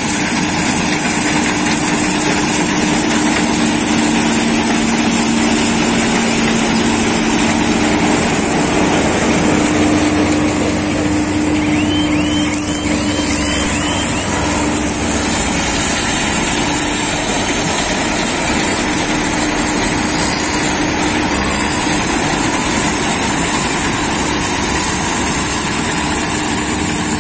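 John Deere combine harvester running steadily while cutting and threshing standing wheat: its engine and threshing machinery make a loud, continuous sound with a steady hum.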